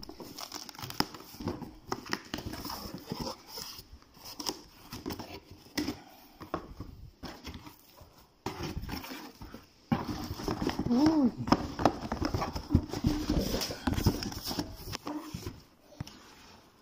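Cardboard shipping box being opened by hand: irregular scrapes, taps and crackles of the cardboard flaps and packing tape, getting louder about ten seconds in. A brief voice rises and falls in pitch about eleven seconds in.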